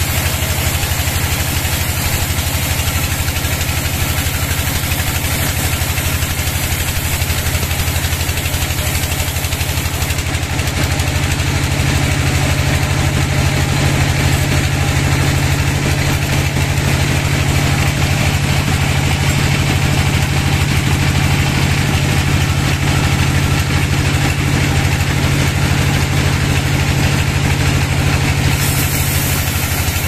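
Sawmill band saw running and ripping a long hardwood log lengthwise: a steady machine drone with the hiss of the blade through the wood. It grows slightly louder about ten seconds in.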